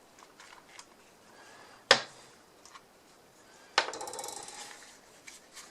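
WORX 20V lithium-ion battery pack being taken apart by hand: faint handling sounds, a sharp click about two seconds in, and near four seconds a clatter with a short metallic ringing rattle that fades over about a second.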